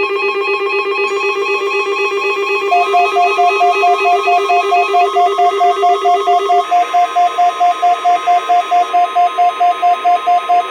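NOAA Weather Radio warning alarm test: the steady 1050 Hz alert tone with several weather radio receivers' alarms beeping and warbling over it. A faster beeping, about three a second, joins about three seconds in, a low warble drops out past the middle, and the beeping stops abruptly at the end.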